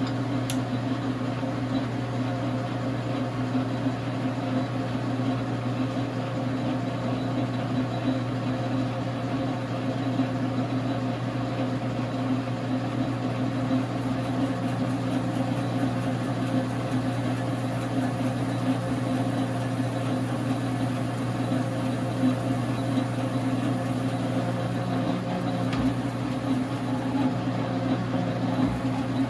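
Dar Sin 12x37 gap-bed lathe running steadily, its motor and geared drive giving an even hum made of several steady tones.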